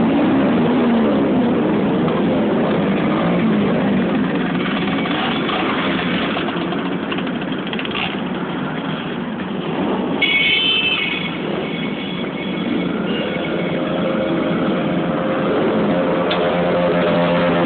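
Several motorcycle engines running together, revving up and down in the first few seconds, then running more steadily, with a short high-pitched tone about ten seconds in.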